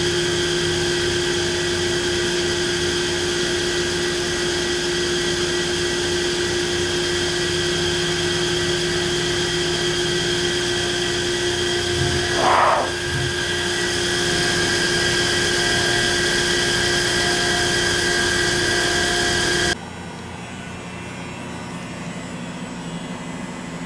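Workshop machine running steadily: a loud whirr with a high whine over a low hum. There is a brief louder swish about halfway, and near the end the sound drops to a quieter steady hum.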